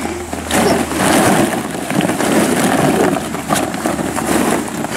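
Plastic ball-pit balls clattering and rustling against each other as a child digs through them with her arms, a dense run of small hollow clicks. A steady low hum sits underneath and stops about four and a half seconds in.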